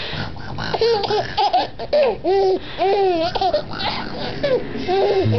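Four-month-old baby giggling: a run of short, high-pitched, rising-and-falling squeals of laughter, starting about a second in.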